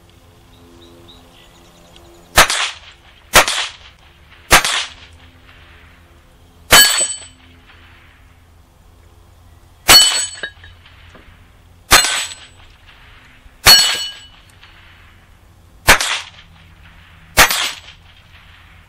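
Nine single shots from a Rossi RS22 semi-automatic .22 LR rifle, fired at an uneven pace one to three seconds apart. Several shots are followed by a brief high ringing of the steel target when it is hit; the first few have little or no ring, which fits misses.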